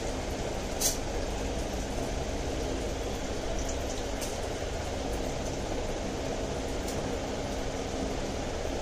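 Steady water-and-motor hum of an aquarium's filtration pump running, with a few short sharp clicks, the loudest about a second in.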